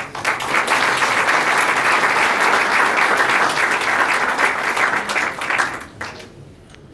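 Audience applauding. The clapping starts at once, holds steady and dies away about six seconds in.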